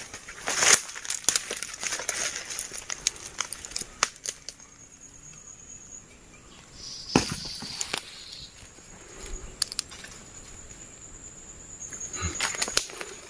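Dry bamboo leaf litter and twigs rustling and crackling as someone moves through them, thickest in the first few seconds and again near the end. A single sharp snap comes about seven seconds in, and a thin high steady tone sounds briefly twice.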